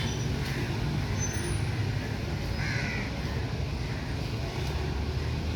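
A crow cawing, most clearly about three seconds in, over a steady low rumble of motor traffic.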